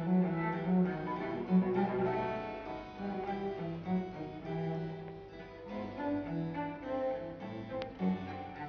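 Background music on bowed strings: a low cello line of held notes under higher string parts.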